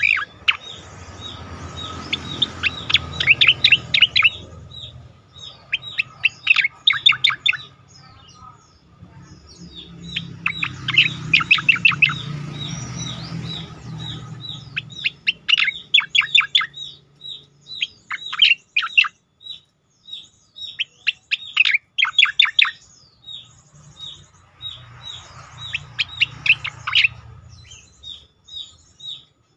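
Striated grassbird (cicak koreng) singing: clusters of rapid, sharply falling whistled notes, each run lasting a second or two and repeating over and over. A low background rumble comes and goes beneath some of the runs.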